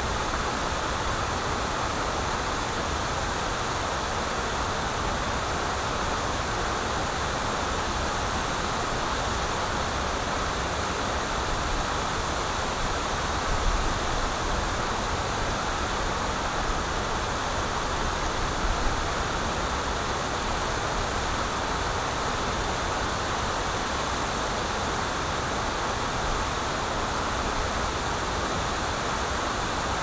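Steady rush of a small river waterfall, water pouring over a low ledge and running through shallow rapids. Two brief low bumps come partway through.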